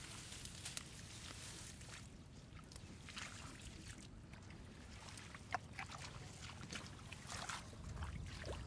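Faint sloshing and splashing of shallow water, with scattered small splashes over a low rumble.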